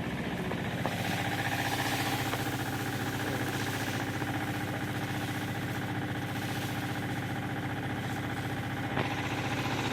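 A vehicle engine running steadily, with one short click near the end.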